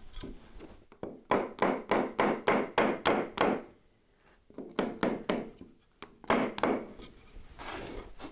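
A wooden 2x4 tapping block being knocked against the edge of a plastic-backed OSB subfloor panel, driving its tongue-and-groove joint together. There is a quick run of about nine wooden thunks at about three a second, then a short pause and two shorter groups of knocks.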